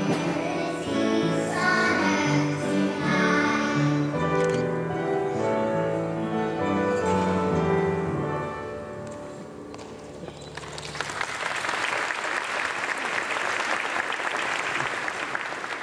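A children's choir sings the end of a song, which stops about nine seconds in; an audience then applauds.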